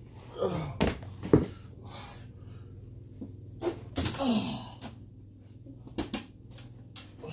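Rough-and-tumble play-wrestling: short grunts and yelps with falling pitch, and several thumps and knocks of bodies hitting the floor, the loudest about a second and a half in.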